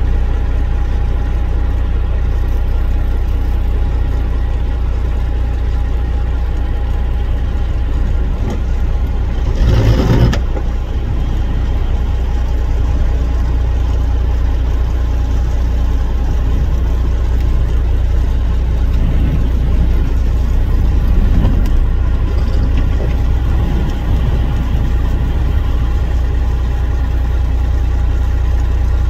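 Strong wind buffeting the microphone as a steady low rumble over the rush of rough surf breaking on a rock jetty, with a brief louder surge about ten seconds in.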